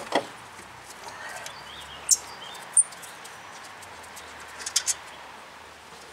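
A few sharp metallic clinks and knocks of tools and rear brake parts being handled: one right at the start, two single clicks in the middle, and a quick cluster of small clinks near the end. Faint bird chirps can be heard behind them.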